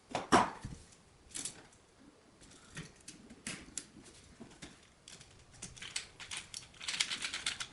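Small clicks, taps and scrapes of hand work on an electrical outlet receptacle: wires being wrapped around and tightened under its terminal screws with a screwdriver. A sharp click comes about a third of a second in, and a quick run of ticks comes near the end.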